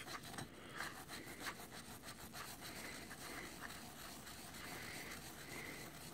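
Faint, irregular scrubbing of a plastic-bristled brush over a rusty axe head soaking in apple cider vinegar, scrubbing lightly to lift off the vinegar-loosened rust.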